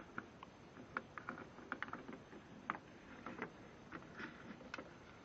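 Faint, scattered light clicks and taps of small tool bits and the plastic tool case being handled.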